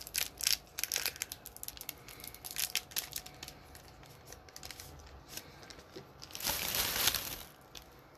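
Hockey trading-card pack wrapper being crinkled and torn open by hand: a run of sharp crackles in the first few seconds, then a longer rip about six and a half seconds in.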